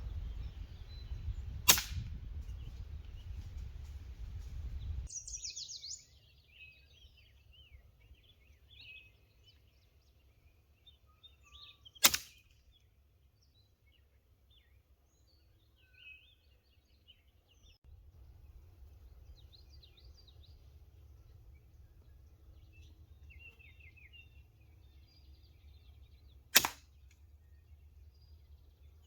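Three sharp air rifle shots, one early, one near the middle and one near the end, each a single short crack. Small birds chirp in the background.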